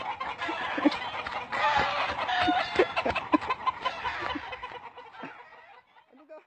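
Chickens clucking, mixed with scattered knocks and rustles, thinning out and fading about five seconds in.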